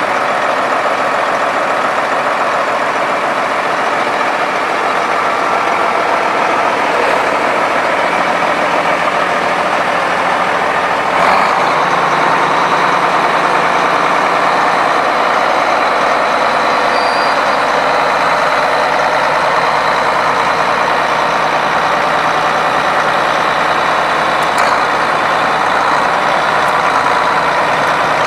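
Case 504 8.3-litre six-cylinder turbo diesel of a 1972 Case 1370 tractor running steadily, the tractor standing still.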